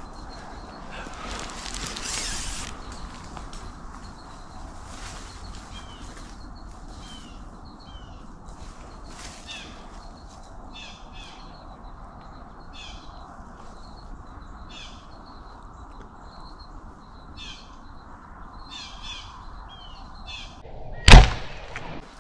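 Birds calling in short, repeated high notes over a steady outdoor hush, with a single sharp, loud knock near the end.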